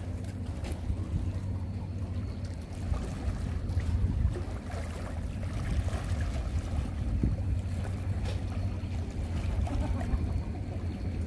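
Steady low rumble of wind buffeting the microphone over rippling sea water, with a few faint clicks scattered through it.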